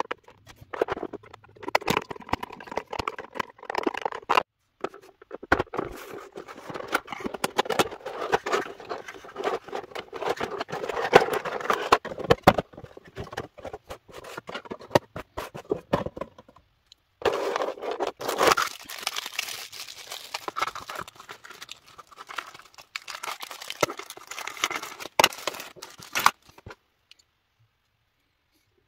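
Crinkling, crackling and scraping of a cardboard box and a clear plastic blister tray being opened and handled, in busy stretches with a couple of short breaks, stopping shortly before the end.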